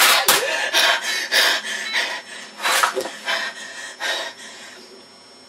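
A person handling things at a computer desk: irregular knocks, rubs and rustles, growing quieter toward the end.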